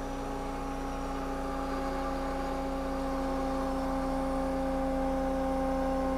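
Electric-motor-driven hydraulic pump running with a steady hum, growing gradually louder as a crossport relief valve is screwed in and system pressure climbs toward its 700 PSI setting.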